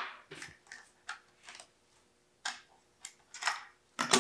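Scattered light clicks and taps of short wooden boards and nails being handled and set out on a workbench, irregularly spaced, with a few close together about three and a half seconds in.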